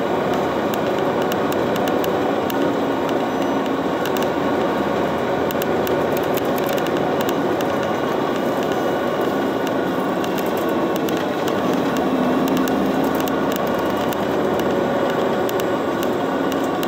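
Inside a moving city bus: a steady engine and road drone with constant fine rattling and clicking from the cabin fittings.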